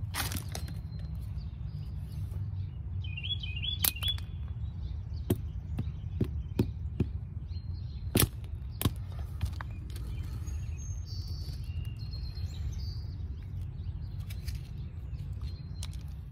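Rubber mallet knocking plastic crack-injection ports off a concrete foundation wall: a series of sharp, separate knocks, the loudest about eight seconds in, over a steady low rumble.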